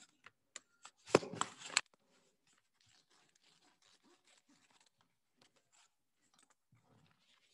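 A paper bid envelope being torn open, with a short loud burst of tearing about a second in, then faint rustling and handling of paper.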